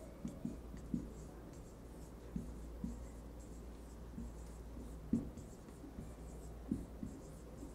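Marker pen writing on a whiteboard: short, irregular strokes and taps of the tip as the letters are drawn.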